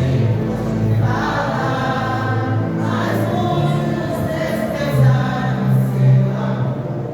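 A gospel vocal group singing a worship song together over music accompaniment with held low bass notes, swelling louder about five and six seconds in.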